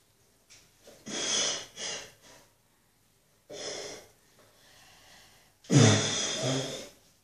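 Child blowing hard into a homemade foam machine (a cut plastic bottle with a sock over the end, dipped in shampoo and water), three long breaths pushed through the soapy sock. The last breath, near the end, is the loudest.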